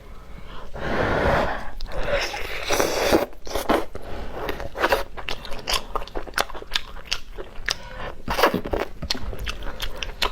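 Close-up crunching as a person bites into and chews crisp food. A long, dense crunch comes in the first few seconds, then a steady run of sharp separate crunches.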